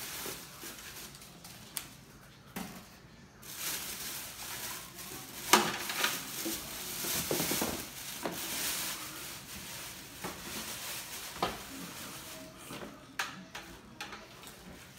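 Unboxing and handling noise from a slow cooker and its packaging: a stretch of crinkling, rustling packaging in the middle, with scattered knocks and clinks as the stoneware crock and lid are handled.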